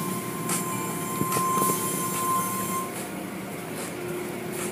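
Automatic tunnel car wash equipment running, with water spray hissing over a steady mechanical din. A steady high-pitched whine sounds over it and stops about three seconds in.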